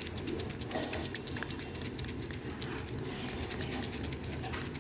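A medicine container being handled to make a sound effect: a rapid, fairly even run of small sharp clicks, roughly ten a second, thinning out near the end.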